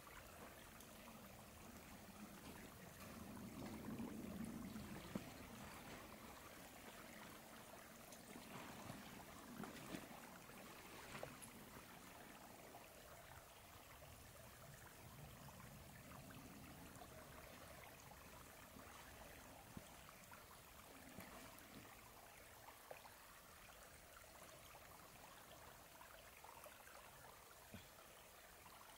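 Faint, steady trickle of a small stream running over rocks, with a few soft rustles and knocks in the first dozen seconds.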